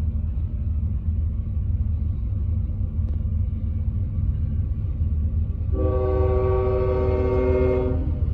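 CSX diesel locomotive rumbling steadily past, sounding its multi-note air horn once for about two seconds near the end.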